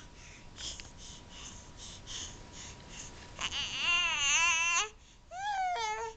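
A six-month-old baby huffing with quick, noisy breaths, about three a second, then letting out a loud squeal with a wavering, wobbling pitch about halfway through and a shorter squeal near the end.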